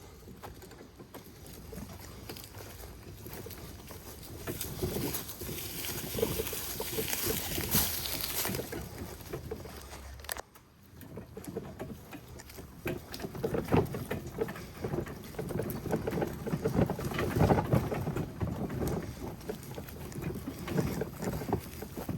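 A plastic ride-on toy car body rattling and scraping while it is wheeled along on a dolly, with wind on the microphone. The noise drops out briefly about ten seconds in and grows louder and more clattery in the second half.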